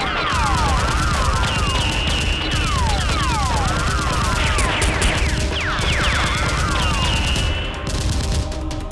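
Gunfire sound effects: rapid volleys of automatic fire mixed with repeated falling, whistling ricochet sounds, over background music.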